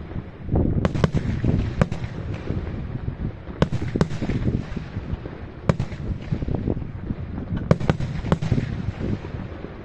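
Aerial firework shells bursting: sharp bangs about every second, some in quick pairs, over a continuous low rumble of further bursts and echoes.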